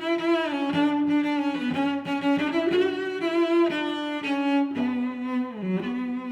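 Background music: a bowed-string melody on cello and violin.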